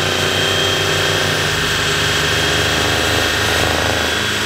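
Audi sedan's engine running at a steady speed on a trailer chassis dyno, without a rising rev sweep; its pitch shifts slightly about a second and a half in.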